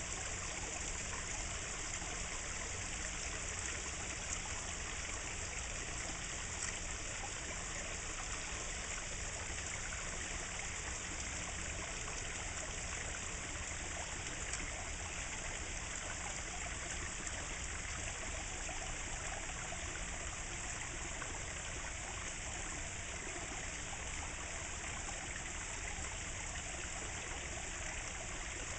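Steady running and trickling water in a garden koi pond, with a few faint splashes as spawning koi thrash at the surface.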